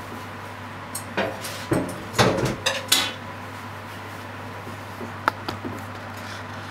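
Kitchen clatter of a frying pan and utensils being knocked and set down: several clanks between about one and three seconds in, then a single sharp click, over a steady low hum.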